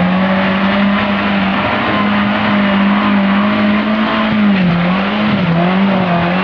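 Off-road vehicle's engine running hard at high, fairly steady revs under load, its pitch dipping briefly a couple of times near the end.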